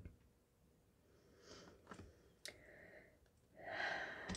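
A few faint clicks and light taps with a soft rustle near the end, typical of tarot cards being handled on a table.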